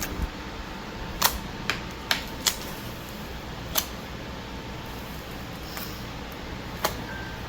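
Homemade slime being squished and played with by hand, giving scattered sharp little clicks and pops, about six over several seconds.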